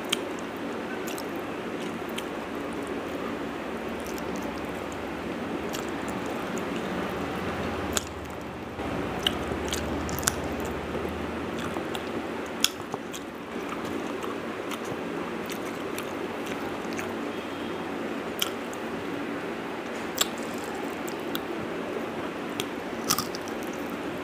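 A person chewing and biting food eaten by hand, close to a clip-on microphone, with sharp clicks now and then over a steady background noise.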